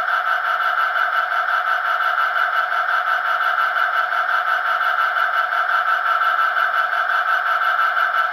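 ESU LokSound V4 sound decoder in a model Class 77 locomotive playing the EMD 710 twelve-cylinder prime mover, running steadily through the model's small speaker. The sound is thin, with no low end.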